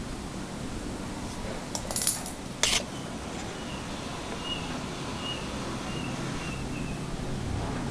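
Steady background noise with a few short, sharp clinks about two to three seconds in.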